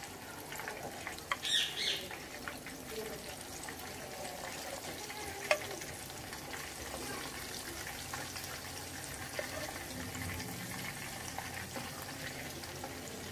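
Mince-stuffed tinda (apple gourds) frying in ghee in a wok, a steady sizzle. A brief clatter of the wooden spoon against the pan about a second and a half in, and a sharp tap about five seconds in.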